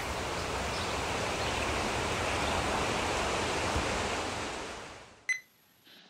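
Wind rushing steadily through snowy pines, fading away about five seconds in, followed by a single short electronic beep.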